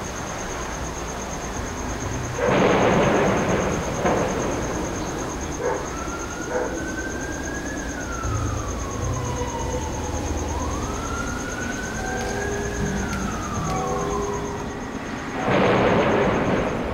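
Siren wailing, its pitch sliding up and down twice over several seconds, with two loud bursts of rushing noise, about two seconds in and near the end.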